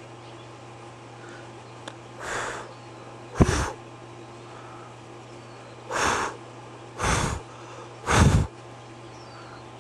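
Five short puffs of breath hitting the microphone, the first about two seconds in and then a second or so apart, the last the strongest, over a steady low hum.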